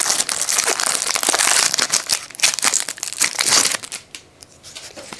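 Plastic wrapper of a 2016-17 NBA Hoops trading card pack being torn open and crinkled. The crinkling dies down about four seconds in.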